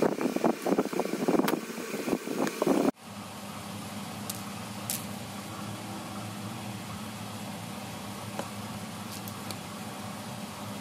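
Needle-nose pliers clicking, scraping and knocking against the plastic housing of a DENSO electric motor as the connector is pried at. About three seconds in the sound cuts off abruptly to a steady low mechanical hum.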